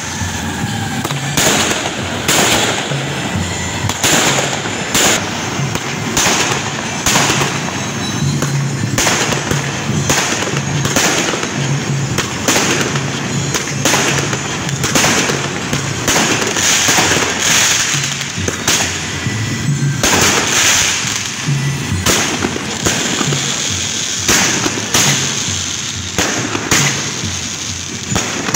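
Aerial fireworks and sky rockets going off: an irregular string of sharp bangs and crackles, several a second, over a steady hiss.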